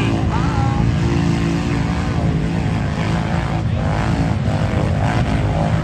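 ATV engines running in a steady, low drone.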